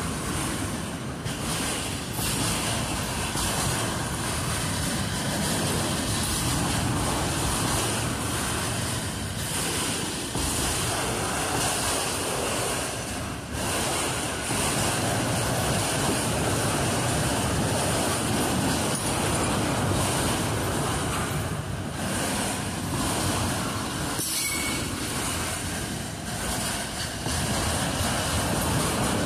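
Freight train of autorack cars rolling past: a steady rumble of steel wheels on rail, with a continuous high-pitched wheel squeal over it.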